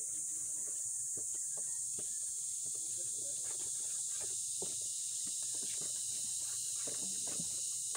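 Steady high-pitched buzz of insects in the background, with scattered light clicks and knocks of hand work on a scooter's front wheel and fork.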